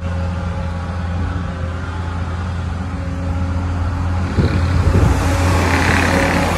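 Compact track loader's diesel engine running steadily with a deep hum. From about four seconds in it grows louder, with rattling and knocking.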